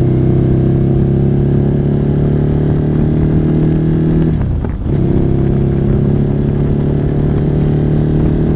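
Ducati L-twin motorcycle engine with a full Termignoni exhaust running at steady held revs; about four and a half seconds in the note briefly sags and drops in level, then comes back to the same steady pitch.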